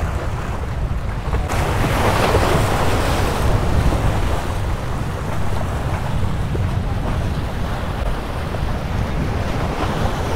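Sea waves washing and splashing among the concrete tetrapods of a breakwater, with wind buffeting the microphone in a steady low rumble. A wave surges in about a second and a half in and eases off a couple of seconds later.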